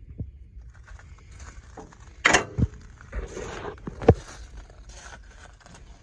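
Rear engine-compartment door of a Bobcat skid steer being swung shut: knocking, scraping and rattling, ending in a sharp metal bang about four seconds in. The engine is not running.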